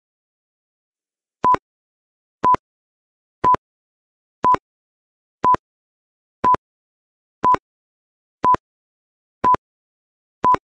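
Countdown timer sound effect: ten short electronic beeps, all at one pitch, one each second, marking the seconds ticking down to the answer.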